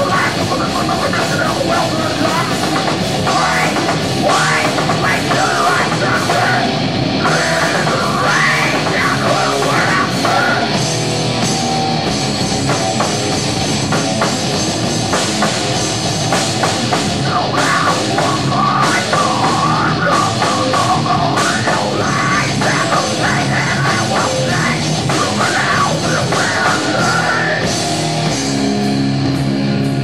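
Live heavy metal band playing loud, with electric guitars, bass guitar, drum kit and vocals. Near the end the full band drops away to a few held low notes.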